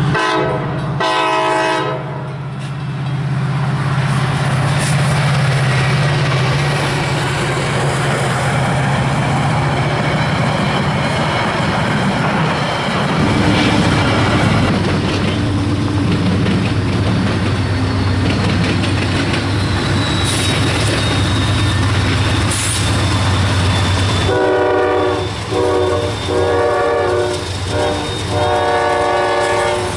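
A train horn sounds for the first two seconds, then diesel locomotive engines run with a steady low rumble as a freight train draws near. Near the end the lead Norfolk Southern GE Dash 9-40CW blows its horn in four blasts as it passes close by.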